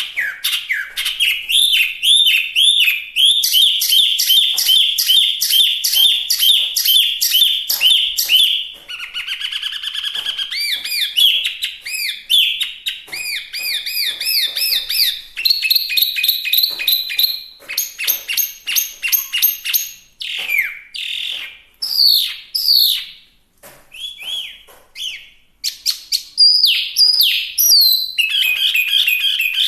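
Chinese hwamei singing a long, varied song: fast runs of repeated whistled notes and trills, then rising and falling sweeping phrases broken by short pauses in the second half.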